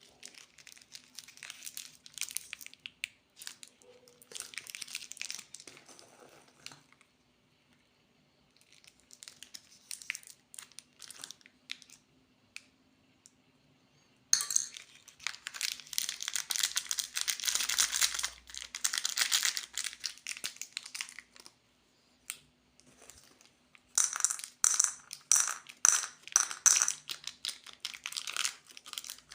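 Plastic candy wrappers and packaging crinkling as they are handled and opened, in bouts of a few seconds with short pauses between them. Near the end there is a run of quick clicks and rattles.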